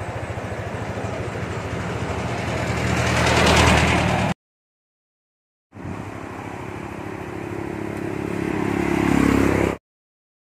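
Yamaha scooter engine running and growing louder, cut off abruptly about four seconds in; after a second and a half of silence a second stretch of engine sound swells and stops suddenly near the end.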